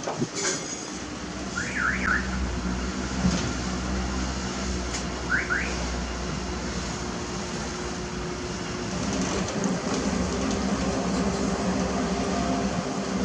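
Heavy road-construction machinery engines running steadily with a low rumble. There are a few knocks, and twice a quick pair of short rising chirps, about two seconds in and again about five and a half seconds in. The sound grows louder near the end.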